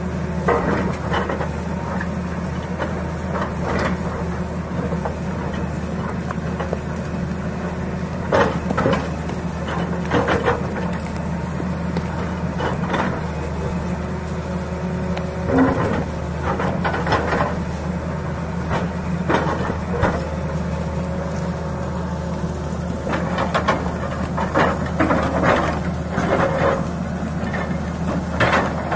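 Tata Hitachi Zaxis 220 excavator's diesel engine running steadily under digging load, with the clatter and scrape of its bucket against dirt and rock every few seconds, in clusters near the middle and toward the end.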